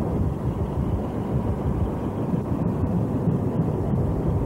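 Steady low rumble of a diesel train running.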